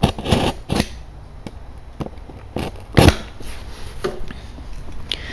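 Box cutter scraping and slicing along the taped edges of a cardboard box, with a series of sharp knocks and clicks, the loudest about three seconds in.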